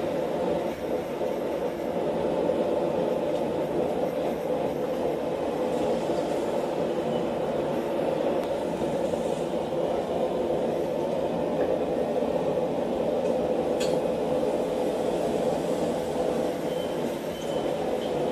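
Steady rushing noise of a running forge, even and unbroken, with one faint click about fourteen seconds in.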